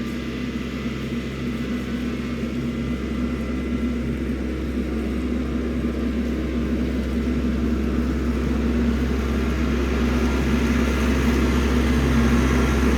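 Vehicle engine running steadily while driving, a low drone that grows slowly louder.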